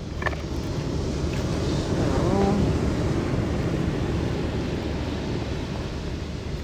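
Ocean surf breaking and washing up the beach, with wind rumbling on the microphone. The surf swells to its loudest about two seconds in, then eases.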